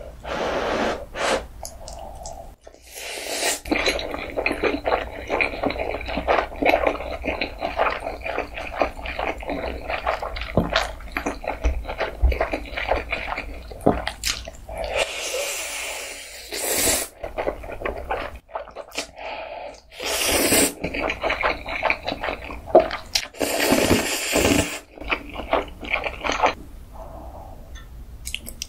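Close-miked mouth sounds of someone eating Buldak spicy stir-fried instant noodles: wet chewing and smacking with many small clicks, and several long loud slurps in the second half.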